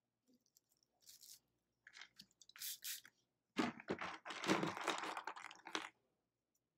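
Perm end paper rustling and crinkling as it is folded over a strand's ends and rolled onto a perm rod: a few short rustles, then a louder, denser stretch of crinkling lasting about two seconds near the end.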